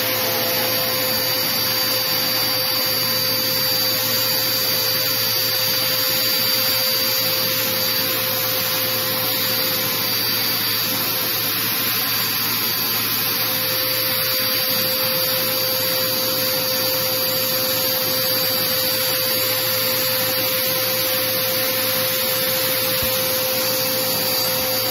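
Dirt Devil Power Duo upright vacuum cleaner running steadily with its crevice tool attached: a constant motor whine over the rush of air.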